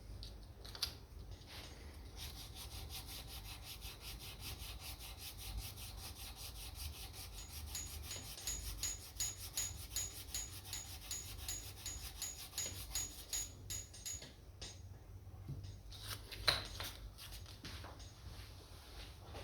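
Rhythmic back-and-forth hand rubbing or sanding strokes on the guitar's finish, about two to three a second, which stop after about twelve seconds. A single sharp tap comes near the end.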